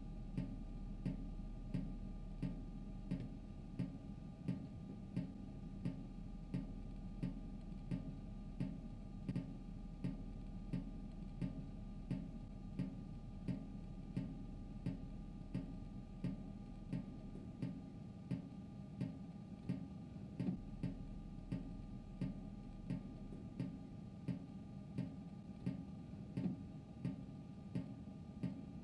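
Even ticking, about three ticks every two seconds, over a steady low hum with a few faint held tones: a spare ambient soundtrack.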